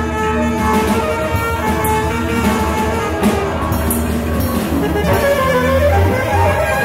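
A live band playing, an electric bass under a mix of held melodic tones.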